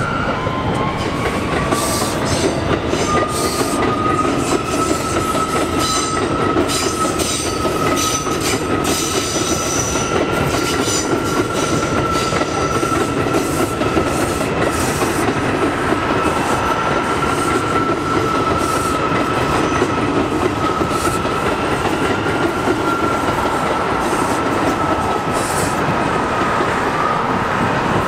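New York City Subway R179 train running along a curved elevated viaduct. Its wheels squeal in one long, nearly steady high tone over a continuous rumble of wheels on rail, with scattered sharp clicks.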